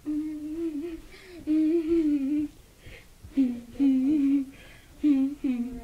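A girl humming a wordless tune in four held, wavering phrases with short breaks between them.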